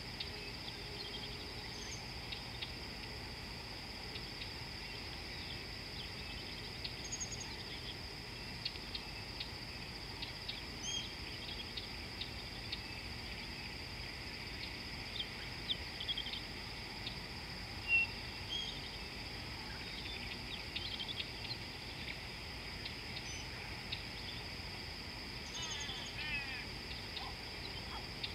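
A steady high-pitched insect drone with scattered short bird chirps and calls over it; one sharper call stands out partway through and a quick run of notes comes near the end.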